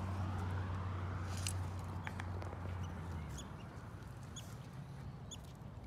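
Short, high-pitched squeaky chirps from river otters, repeating about once a second, over a low steady hum that cuts off about three seconds in.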